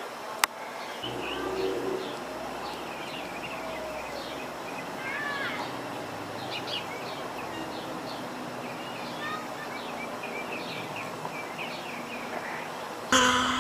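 Small birds chirping over a steady background hiss, with a sharp click just after the start. A louder sound with a held, slightly falling pitch cuts in about a second before the end.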